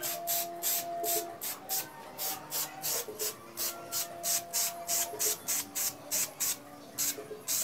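Aerosol can of matte black spray paint sprayed in short, quick bursts, a hiss about three times a second.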